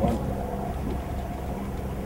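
Steady low hum of a boat motor, with a single knock right at the start.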